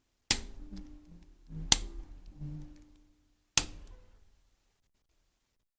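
Sharp cracks from a chiropractic adjustment: joints in the neck and upper back popping under the practitioner's thrust. There are three sudden cracks about a second and a half apart, and the middle one is the loudest and crispest.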